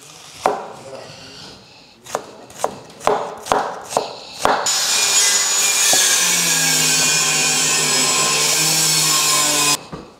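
A large knife cutting an onion on a wooden chopping board: about seven separate sharp knocks of the blade on the board in the first half, then from about halfway a loud, continuous, even noise with a faint low hum that cuts off abruptly after about five seconds, as the onion is chopped fine.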